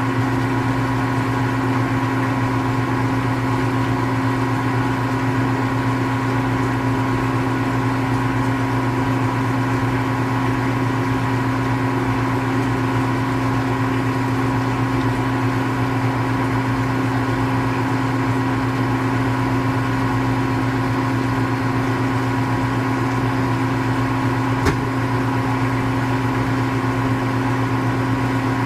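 Steady mechanical hum with a constant low drone and a higher whine, unchanging throughout, broken once by a short click about 25 seconds in.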